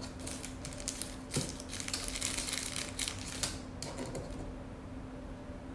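Small metal jump rings and earring hooks being handled and fitted onto 3D-printed plastic earring pieces: a quick run of light clicks, taps and rustling that thins out after about four seconds.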